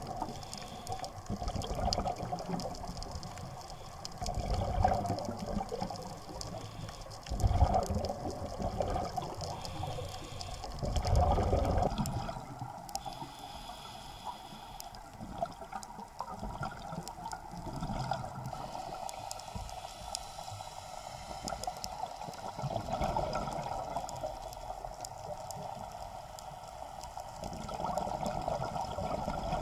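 Scuba diver's exhaled regulator bubbles heard underwater through an action camera's housing. They rumble and gurgle in surges every few seconds over a steady underwater hiss with faint crackling.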